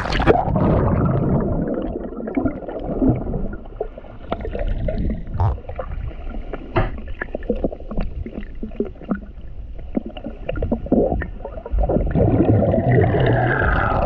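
Muffled underwater sound heard through a submerged action camera's housing: seawater sloshing and gurgling, broken by many scattered short clicks and crackles.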